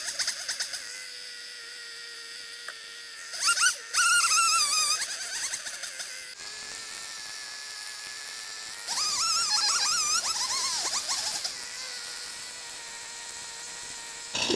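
Stihl chainsaw running at idle, revved up twice to cut through a fallen tree trunk, its pitch wavering under load: once about three and a half seconds in and again about nine seconds in, each for a second or two.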